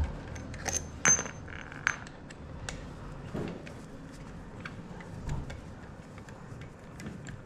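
Scattered light metallic clinks and taps of small hand tools and steel bolts being handled and set down on a stone worktop while a pump head is unbolted with an Allen key, the sharpest clinks about one to two seconds in.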